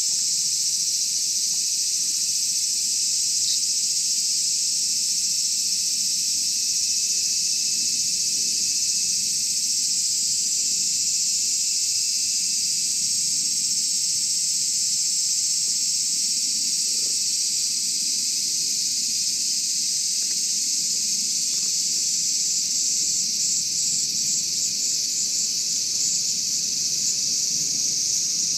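Steady high-pitched drone of an insect chorus, with a quick pulsing rhythm coming into it near the end.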